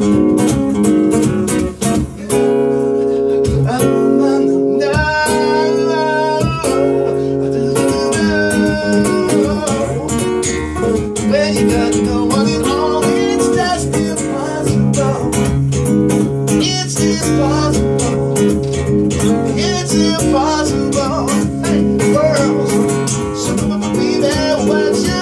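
Acoustic guitar strummed and picked in an instrumental passage of a song, steady chord strokes with melodic lines over them.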